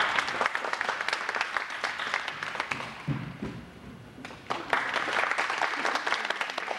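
Audience applauding, the clapping dying down about three seconds in, then rising again for a second round.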